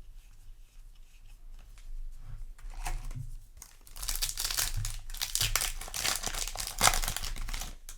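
Foil wrapper of a Yu-Gi-Oh! booster pack crinkling and tearing as it is opened, faint at first and busier over the last few seconds, with one sharp rip near the end.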